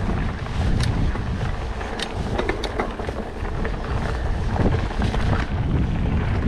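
Wind buffeting the camera microphone and the tyres of a Trek Stache 29-plus hardtail mountain bike rumbling over a dirt singletrack, with several sharp clicks and rattles from the bike.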